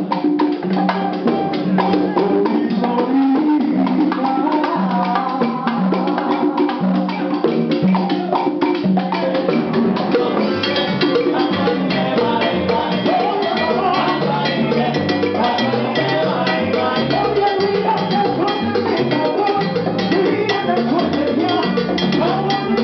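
Live salsa band playing, with congas to the fore over upright bass, bongos and timbales. About ten seconds in the groove opens up, brighter on top with the bass line moving lower.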